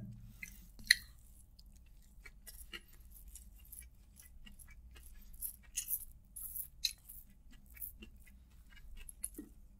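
Fingers gathering and pressing biryani rice on a thin plastic sheet: faint, scattered crackles and soft ticks of the plastic and rice, with one sharper click about a second in.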